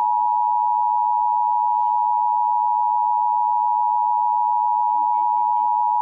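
Emergency Alert System attention signal: the steady two-tone alert sounding without a break, played over a computer's speakers, signalling an incoming tornado warning.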